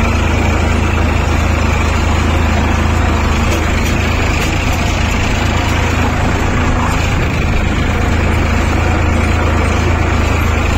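Tractor diesel engine running steadily under load while pulling a laser land leveller, a loud, even low drone with no change in speed.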